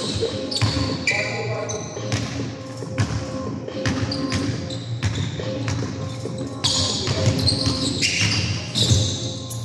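Basketball bouncing on a sports hall's wooden floor, with players' shoes squeaking and scuffing during play, echoing in the large hall. A cluster of short high squeaks comes near the end.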